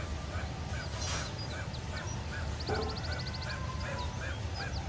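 Kapalbhati breathing: short, forceful exhalations pushed out through the nose in an even rhythm, about two and a half a second. Small birds chirp and trill in the background.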